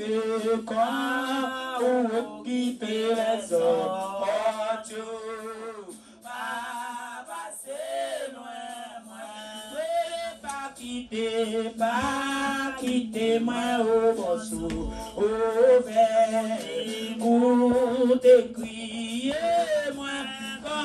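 A voice singing a prayer chant in long phrases, its pitch sliding up and down, over a steady low held tone.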